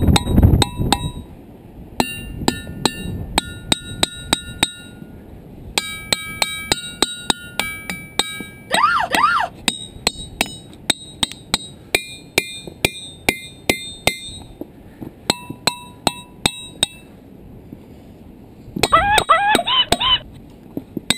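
Diabase boulders of a ringing-rock field struck with a hammer in quick runs. Each blow leaves bell-like tones that ring on briefly, and the pitch differs from rock to rock.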